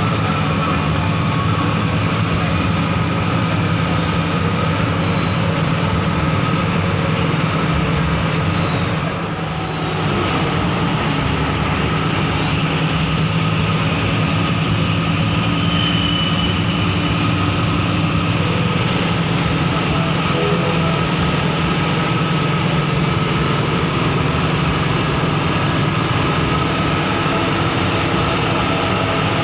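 Intercity bus running on the road: steady engine and road noise with a thin high whine that wavers for a few seconds. The noise eases briefly about nine seconds in, then carries on.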